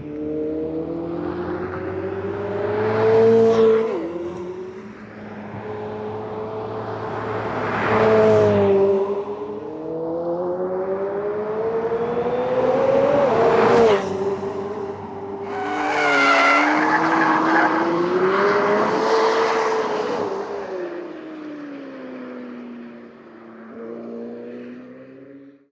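McLaren 765LT's twin-turbocharged V8 running hard on track, climbing in pitch three times, with each climb broken off by a sudden drop about 4, 9 and 14 seconds in as it shifts or lifts. Then a longer rise and fall in pitch.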